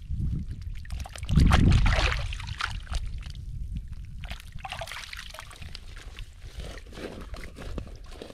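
Water and mud sloshing and trickling as someone wades and gropes by hand for crabs. The loudest splash comes about a second and a half in, with scattered small clicks and splashes after it.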